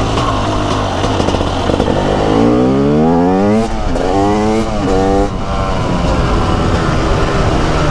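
TM SMR 300 single-cylinder two-stroke supermoto engine accelerating. The revs climb steeply for about a second and a half and drop sharply at a gear change. Two shorter climbs and drops follow at the next shifts, and then the engine runs steadier at mid revs.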